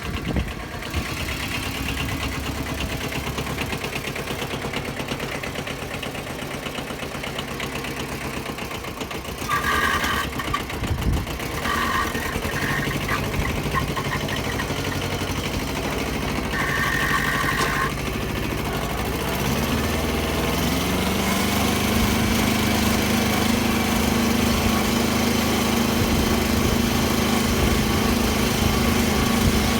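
Small farm tractor's engine running as it pulls a rotary tiller through the field; the engine note rises about twenty seconds in as the revs are raised, then holds steady. A few short higher tones sound around the middle.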